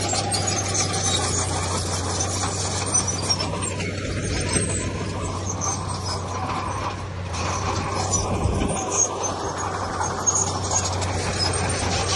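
Heavy earthmoving machinery at work: a diesel engine runs with a steady low hum under a continuous metallic clatter and rattle, with occasional knocks.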